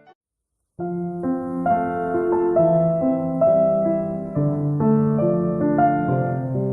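Background piano music playing a gentle melody with chords; it cuts out completely for a moment just after the start, then picks up again.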